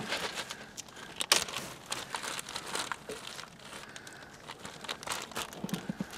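Irregular crinkling and rustling with scattered light clicks and knocks, the sharpest a little over a second in: handling noise.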